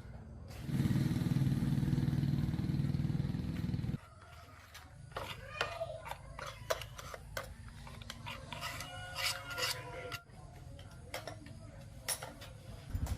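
A motor-driven workshop tool runs steadily for about three seconds and stops abruptly, followed by a series of light clicks and taps of metal parts being handled.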